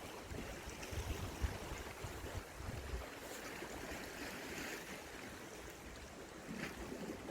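Wind buffeting the microphone in low gusts for the first few seconds, over a steady wash of sea waves.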